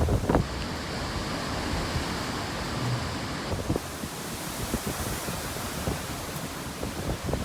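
Steady hiss of hurricane wind and rain, with a gust buffeting the microphone that dies away in the first half second.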